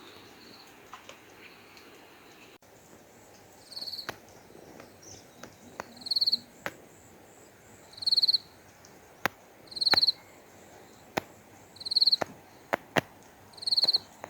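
An insect chirping: a short, high chirp repeated about every two seconds, starting about four seconds in, with sharp clicks in between.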